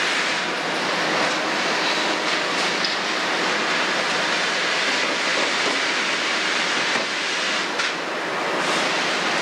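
Kobelco 350 excavator's Hino six-cylinder diesel running steadily under hydraulic load while the bucket digs into the sand pit, with a constant hiss.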